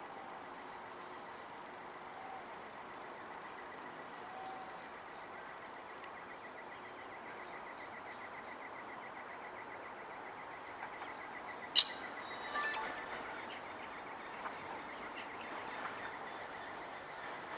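Quiet open-air ambience with a steady hiss and a few faint bird chirps. About twelve seconds in a single sharp click is the loudest sound, followed by a brief rustle.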